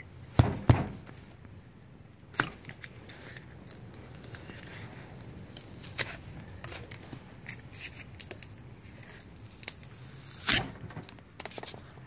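Hardened Great Stuff expanding foam being picked and crumbled off a tyre by hand: scattered crackles and small taps. A few louder knocks come just after the start, about two and a half seconds in and about ten and a half seconds in.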